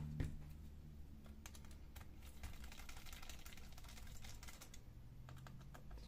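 Faint scattered clicks and taps of small plastic and metal parts as a laptop's cooling fan is fitted back into the opened chassis and a screwdriver is picked up, with one louder click shortly after the start.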